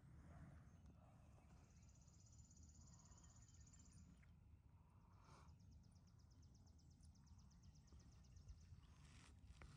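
Near silence outdoors: a faint low background rumble, with two faint, high, rapidly pulsed trills from a small animal, each lasting about three seconds.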